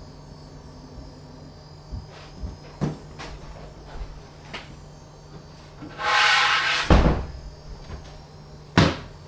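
Handling knocks and clunks as the 3D printer is reset and its bed cleaned, over a steady low hum. About six seconds in comes a loud rushing noise lasting about a second that ends in a thump, and a sharp click follows near the end.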